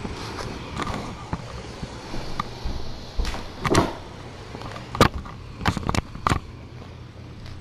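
Handling noise of a camera being picked up and repositioned close to its microphone: rubbing and fumbling with a cluster of sharp knocks and bumps about three to six seconds in, the loudest near the fifth second.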